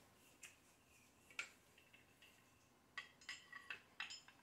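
Faint clicks and clinks of a drum throne backrest's mounting bracket being handled and turned over: a single sharp click about a second and a half in, then a quick cluster of small knocks from about three seconds in.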